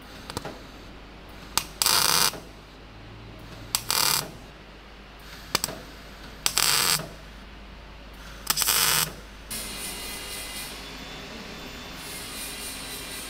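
MIG welder striking four short tack welds on a small steel part, each a crackling burst of about half a second, roughly two seconds apart.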